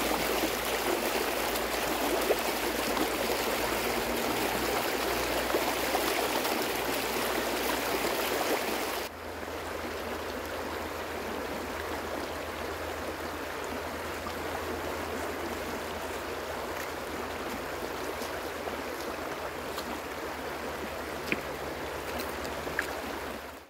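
Mountain river rushing steadily over its gravel and cobble bed. About nine seconds in it cuts abruptly to a slightly quieter rush of the same kind.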